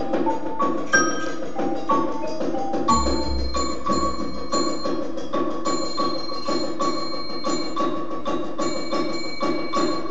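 Percussion ensemble playing mallet instruments, marimba among them: a fast, even stream of struck notes with ringing, bell-like high notes held over it.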